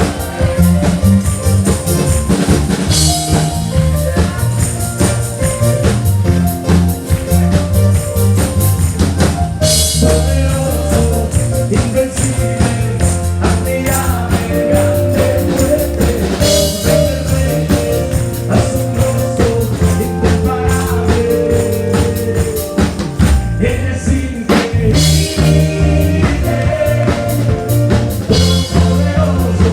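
Live band playing worship music with drum kit, bass and guitars, a steady beat with cymbal crashes, and some singing.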